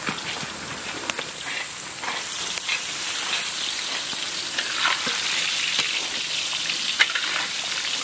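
Onions and spice pastes sizzling steadily in hot oil in a large metal kadai, stirred with a spatula that clicks and scrapes against the pan now and then.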